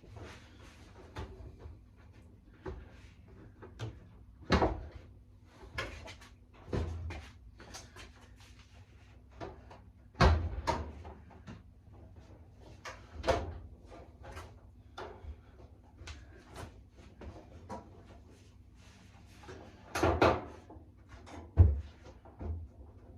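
Irregular knocks and clunks, a handful of them loud, as tumble dryer parts are handled and fitted during reassembly.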